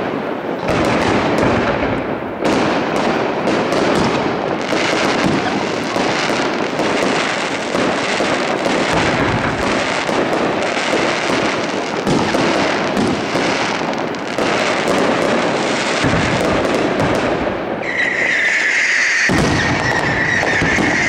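Fireworks display: aerial shells bursting in rapid, overlapping bangs and crackles. A steady high whistle joins near the end.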